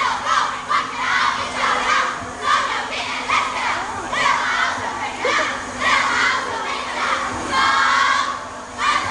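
A group of schoolgirls shouting a cheer together in high voices, in short repeated bursts.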